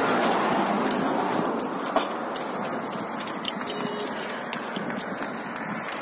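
Highway traffic noise: a vehicle going past, swelling in the first second or so and then fading, with a single sharp click about two seconds in.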